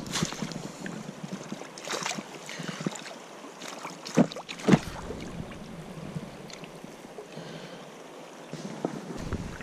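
Flowing river water with a brown trout thrashing in a landing net at the surface, splashing several times, the loudest two splashes close together about four seconds in.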